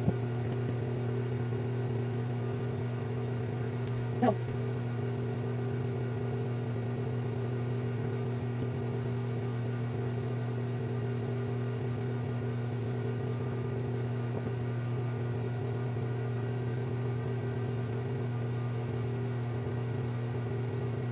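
Electric fan running with a steady low hum, and one brief short sound about four seconds in.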